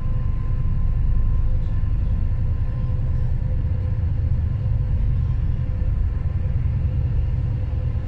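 Steady low engine rumble with a thin, steady hum above it, the sound of riding aboard a running vehicle or vessel.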